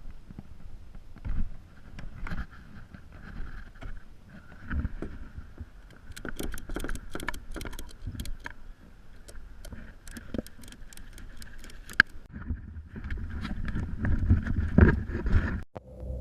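Kayak moving on the water, with many sharp clicks and rattles of gear against the hull over a low rumble that grows louder in the last few seconds, then cuts off suddenly.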